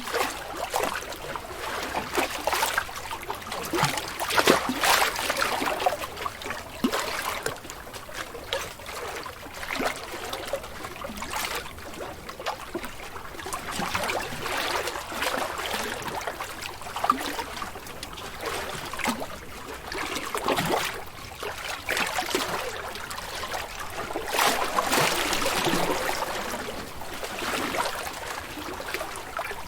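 Ocean waves washing in and splashing, with crackling spray and foam; the surf swells and eases, loudest about four seconds in and again near the end.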